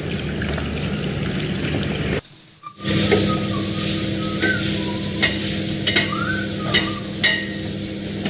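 Tap water running into a steel sink and pots, a steady hiss, with a few sharp clinks of steel utensils in the second half. The sound drops out briefly about two seconds in.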